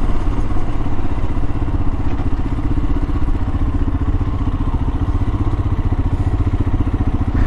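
Royal Enfield Himalayan's single-cylinder engine running steadily under way, heard onboard the motorcycle, with no big revs or pitch changes.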